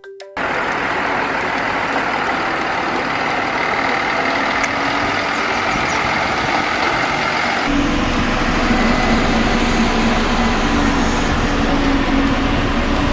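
Concrete mixer truck running, a steady heavy engine sound. About seven and a half seconds in it changes abruptly to a deeper, steadier drone with a clear low hum.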